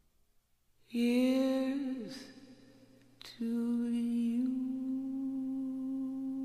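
A woman's low voice singing the slow closing notes of a jazz ballad after a near-silent pause. The first note begins about a second in and slides down. After a short break comes a long held note that steps up once in pitch.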